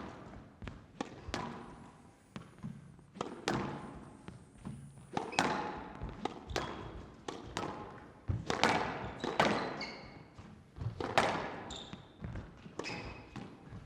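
Squash rally: the ball cracking off rackets and the court walls in an irregular run of sharp hits, each echoing in the hall, with shoes squeaking on the court floor in the second half.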